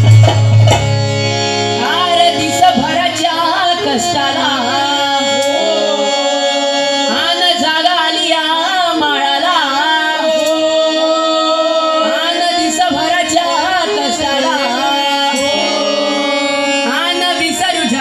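Dhangar folk dance song: voices singing to a hand-beaten drum. A heavy drum beat opens, and the singing comes in about two seconds in over lighter, steady drumming.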